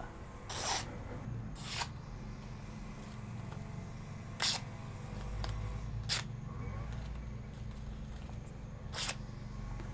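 Knife blade slicing through newspaper, five short cuts spaced one to three seconds apart: a paper-cutting test of an edge freshly sharpened on a file. A steady low hum runs underneath.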